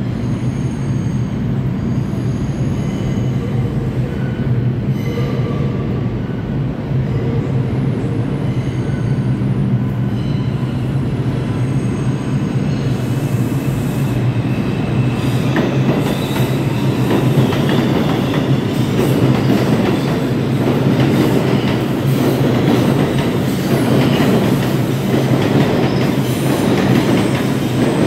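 New York City subway train approaching and then running past the platform, wheels clattering and squealing on the curved track. It grows louder from about halfway, over a steady low hum.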